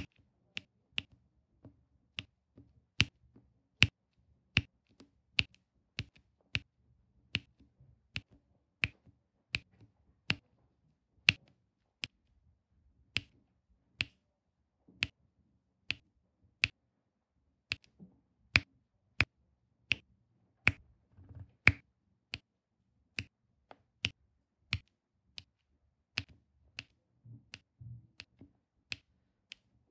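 Diamond-painting drill pen pressing round drills onto the sticky canvas one at a time: a crisp click with each drill placed, about one to two a second, unevenly spaced.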